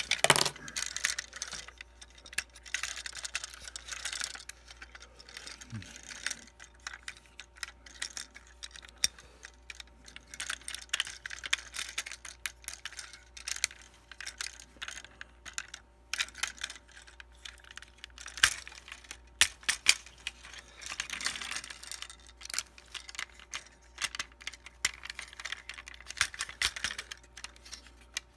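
Hard plastic parts of a Transformers Titans Return Six Shot figure clicking and rubbing as it is handled and moved through its modes by hand: irregular clicks with a few stretches of scraping.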